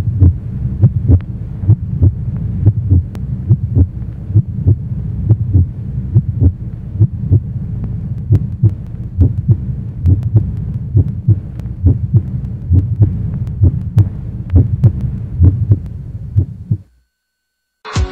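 Heartbeat sound effect: a steady run of low beats over a low hum. It stops about a second before the end.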